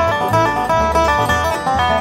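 Bluegrass-style instrumental background music: plucked strings playing a melody over a rhythmic bass line.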